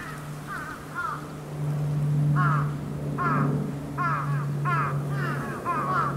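A series of short, pitched animal calls, each falling quickly in pitch, coming more thickly from about two seconds in. A steady low hum runs underneath.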